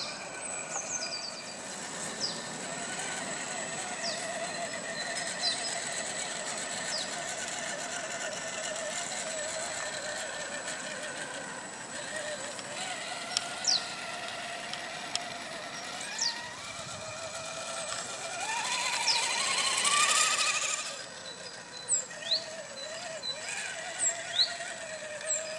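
Electric drive motor and gears of a radio-controlled scale crawler whining as it drives through mud, the pitch wavering with the throttle. About three quarters of the way in the whine rises and grows louder along with a rush of noise as it speeds up, then drops back. Birds chirp briefly now and then.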